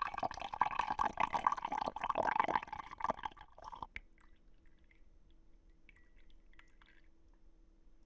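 Ninja CP301 coffee maker pouring a thin stream of freshly brewed hot tea into a ceramic mug. The splashing stops abruptly about four seconds in, leaving a few faint drips as the brew finishes.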